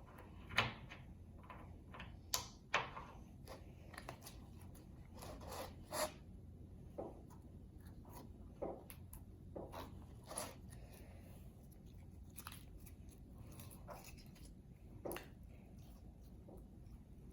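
Slime being kneaded and squished by hand, giving irregular wet clicks and squelches, the sharpest about half a second in and twice more a couple of seconds later.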